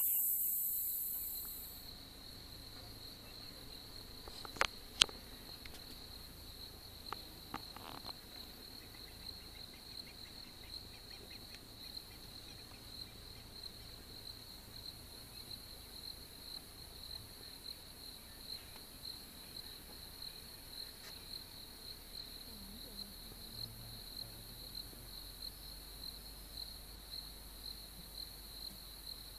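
Cricket chirping in a steady, fast-pulsing high trill. Music fades out in the first two seconds, and two sharp clicks come about five seconds in, the second one loud.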